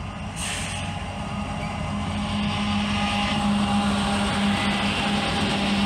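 Diesel locomotives leading a fast intermodal freight train approach with a steady engine drone that grows louder.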